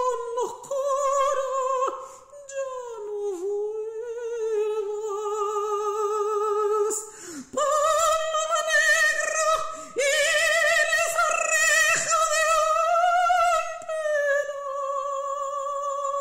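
A woman singing a ranchera in long held notes with wide vibrato. The pitch dips low a few seconds in, then climbs to her highest, loudest notes in the second half, with two short breaks for breath.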